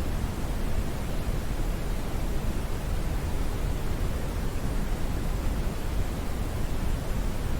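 Steady, smoothed brown noise: an even, deep rushing hiss weighted toward the low end, with no changes or events.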